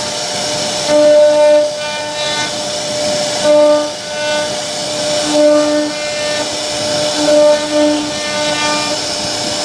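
CNC router carving a wooden door panel: a steady hiss of the spindle and cutter working the wood, with a pitched whine that starts and stops in short spells as the head moves along the pattern.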